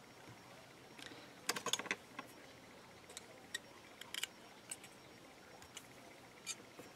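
Faint, irregular clicks and light taps, a dozen or so, from a flat metal blade and a brass bracelet form being handled while polymer clay is trimmed; a small cluster of taps comes about one and a half seconds in.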